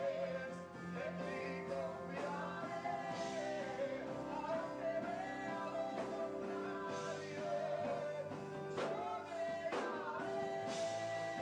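A song playing, with a singer over a full band.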